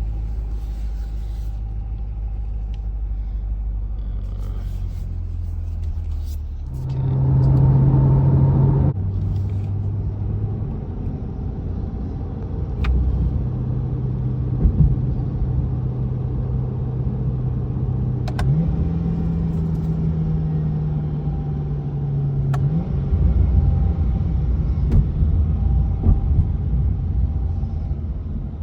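Chevrolet C8 Corvette's V8 engine running as the car is driven: a low rumble, louder for a couple of seconds about seven seconds in. After that comes a steady drone whose pitch steps up about two-thirds of the way through and drops back a few seconds later.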